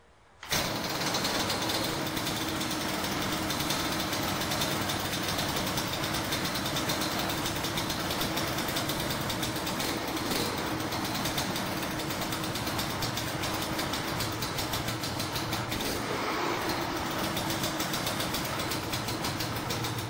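Yamaha DT 200's 195 cc single-cylinder two-stroke engine idling steadily, cutting in about half a second in.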